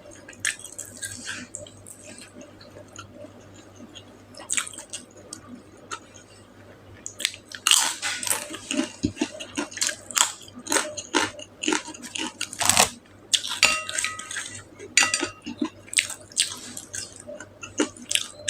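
Close-miked chewing and biting of food: sparse clicks at first, then a dense run of short sharp clicks from about halfway through.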